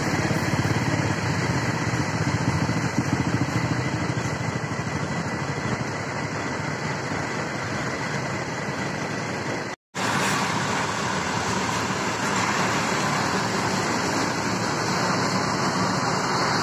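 Diesel engines of large coach buses running at low speed and idling with a steady hum. The sound drops out for a moment about ten seconds in, then the idling carries on.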